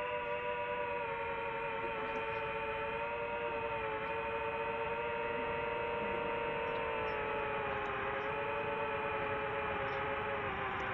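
DJI FPV quadcopter's motors and propellers whining in flight, a steady multi-tone hum that slowly drops in pitch.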